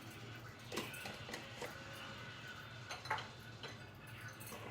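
A few light clinks and taps of kitchen utensils against cookware over a low steady hum, as salt is added to a simmering stew.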